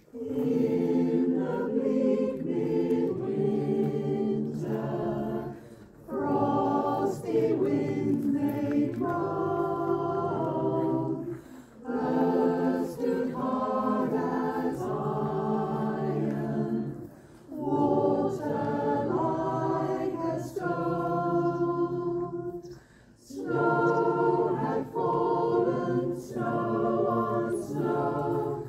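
Choir singing unaccompanied, in phrases of about five or six seconds with brief breaths between them.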